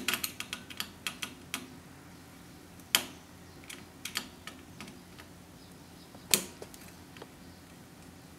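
Metal screwdriver clicking and tapping against a heater switch's mounting bolt and the metal switch strip as the bolt is undone: a quick run of small clicks in the first second and a half, then single sharper clicks about three seconds in and again near six and a half seconds, with a few light ones in between.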